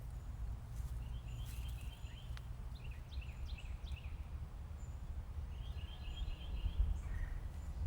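A small songbird chirping in three short, quick phrases over a steady low rumble.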